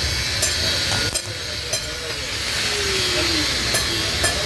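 Motorcycle engine running steadily through a silencer with its inner sound baffle removed, giving a low rapid pulsing under a loud steady hiss.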